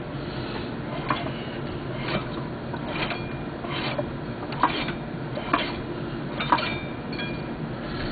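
Light sharp clicks about once a second over a steady low hum: hand work on a partly reassembled snowmobile two-stroke engine whose parts are not yet tightened down.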